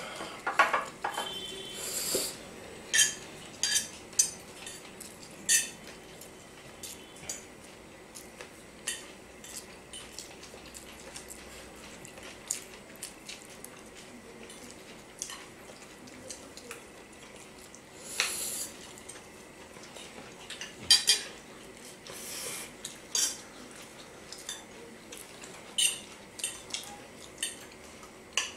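Forks and spoons clinking and scraping against ceramic plates as several people eat noodles: irregular sharp clinks, with now and then a longer slurp of noodles.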